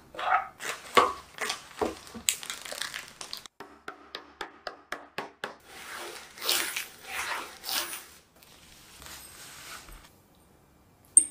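Digestive biscuits crunching and snapping as they are broken up, then crushed inside a plastic zip-lock bag with a rolling pin, the bag crinkling and rustling with each pass.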